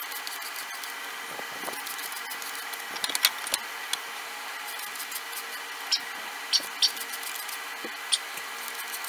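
Steady hum and hiss with several held tones, one high and a few low, and light clicks and taps scattered over it: a cluster about three seconds in and single clicks around six, seven and eight seconds.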